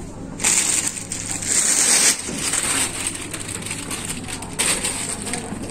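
Clear plastic wrapping crinkling and rustling as a leather handbag is pulled from its plastic cover. There is a long rush of crinkling from about half a second in to about two seconds, then lighter rustling, and another short burst near the end.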